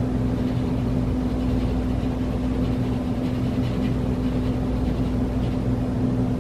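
A steady, even electrical hum, like a running appliance motor, that holds the same pitch throughout.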